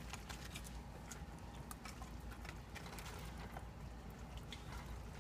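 Green silicone spatula folding fried oyster mushroom pieces into thick sauce in a stainless steel saucepan: faint, irregular soft taps and squelches over a steady low hum.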